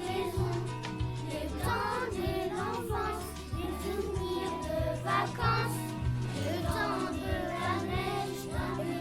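Children singing a song over an instrumental backing with held bass notes.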